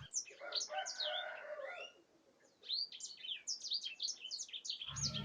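Small birds chirping: a stream of quick, short, high notes, many overlapping, with a brief pause about two seconds in.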